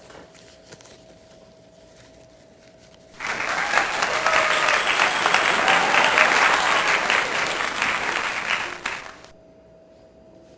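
Crowd applause lasting about six seconds, starting suddenly about three seconds in and cutting off abruptly.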